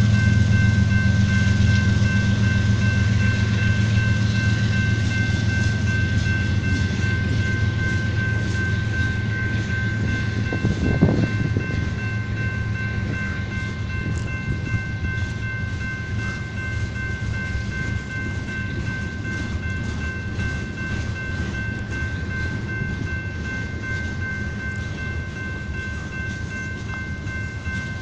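A long freight train rolls past. The low drone of its diesel locomotives fades as they pull away, leaving the clickety-clack of freight car wheels over the rail joints, with one louder clank about eleven seconds in. A steady high ringing from the grade-crossing warning bell sounds through it all.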